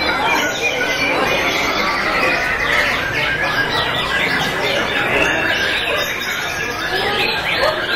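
Many caged white-rumped shamas (murai batu) singing at once: a dense, continuous tangle of overlapping whistles and quick trills.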